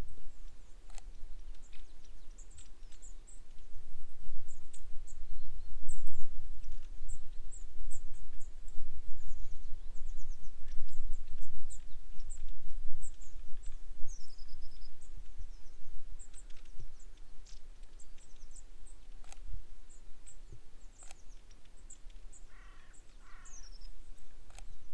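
Wind buffeting the microphone with a low, gusting rumble while small birds give many short, high chirps throughout, with two lower calls near the end.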